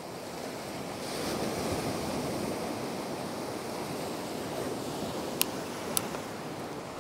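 Small sea swell washing on the shore, a continuous hiss of surf that swells about a second in, with two short sharp clicks near the end.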